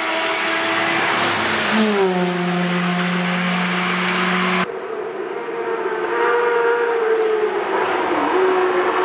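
Motorcycle and car engines running hard as they pass on a racetrack, one engine note dropping in pitch about two seconds in and then holding steady. About halfway through the sound changes abruptly to other engines whose notes rise and dip.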